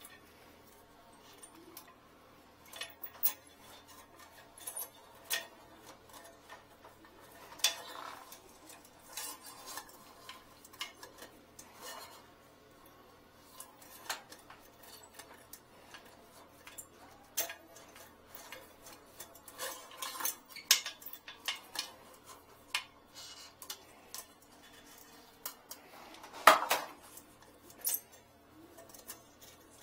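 A cable being worked by hand down the drain of a porcelain toilet bowl, giving irregular clicks, clinks and short scrapes against the porcelain. The loudest knock comes near the end.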